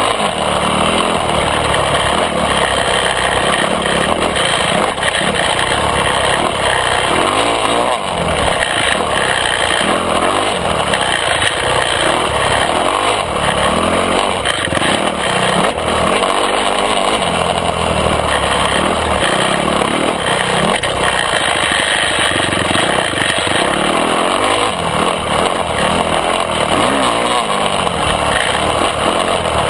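Yamaha YZ250F's single-cylinder four-stroke engine revving up and down continuously as the dirt bike is ridden hard, with the pitch rising and falling through the gears and throttle changes.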